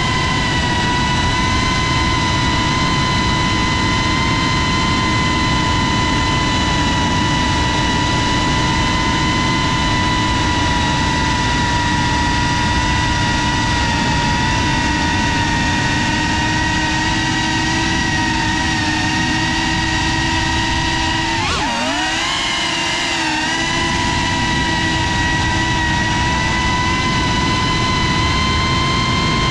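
Cinelog 35 FPV cinewhoop drone's motors and propellers whining steadily at a high pitch over a rushing wash of noise. About two-thirds of the way through, the pitch dips sharply and climbs back over a couple of seconds.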